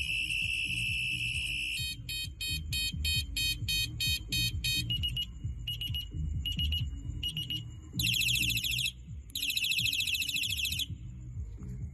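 Electronic horn of a bicycle headlight sounding through its tones: a steady high beep for about two seconds, then quick repeated beeps, then slower single beeps, and finally two warbling siren bursts. Background music runs underneath.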